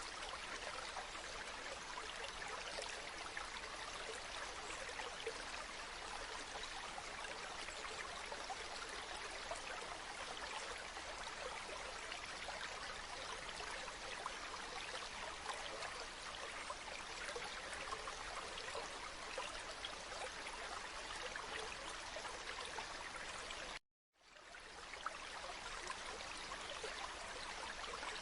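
A river flowing steadily, its water rushing and babbling over stones. Near the end it cuts out to silence for a moment, then fades back in, like a splice in the recording.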